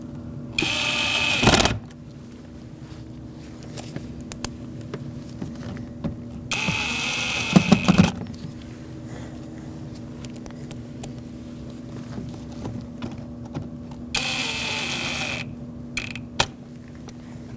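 A cordless power driver running three times in short spurts of about a second and a half, driving in the screws that hold an interior door handle to a car door. There are light clicks of handling between the spurts.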